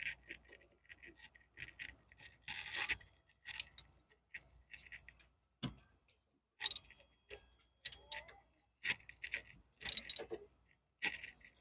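Hand tools working on an ATV's starter solenoid: short runs of sharp ratchet-like clicking and metal clinks, stopping and starting, as its nuts are undone to get the old solenoid out.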